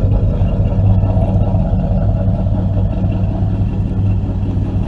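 Chevrolet Monte Carlo SS's V8 idling, a steady low rumble.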